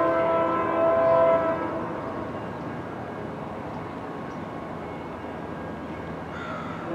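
Freight diesel locomotive's multi-note air horn sounding as the train approaches a grade crossing; the chord cuts off about a second and a half in, leaving the steady rumble of the oncoming train, and the horn starts again at the very end.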